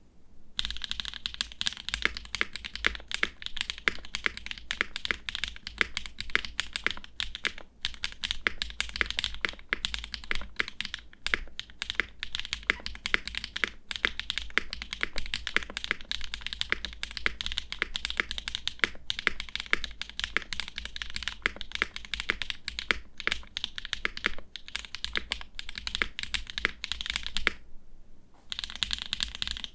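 Continuous typing on a gasket-mounted mechanical keyboard with HMX Macchiato linear switches, an aluminium plate and GMK keycaps: a dense run of keystroke clacks with a bright, higher-pitched sound. The typing pauses briefly near the end, then resumes.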